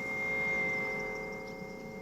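Battery-powered synthesizer holding a sustained chord of pure, sine-like tones, with a high thin tone above several lower ones. It swells a little about half a second in, then eases back.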